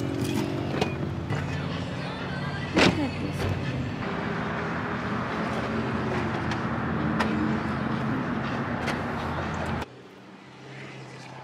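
Car and road noise mixed with background music, with one sharp knock about three seconds in. Near the end it drops suddenly to quieter outdoor noise.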